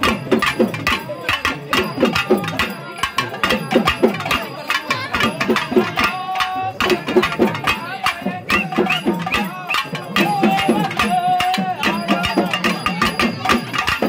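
Pambai drums beaten in a fast, steady rhythm, with a man singing a Tamil folk song for the goddess over them and crowd voices around.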